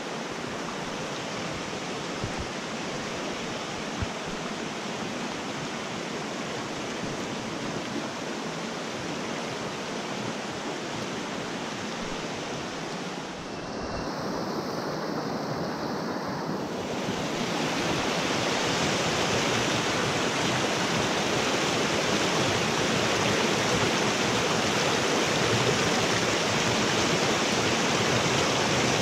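Mountain creek rushing over boulders and cascades: a steady hiss of white water that gets louder past the middle.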